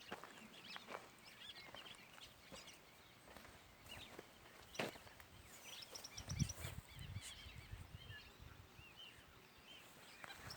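Faint chirping and calling of several birds, with scattered light clicks and steps, and a brief low rumble about six seconds in.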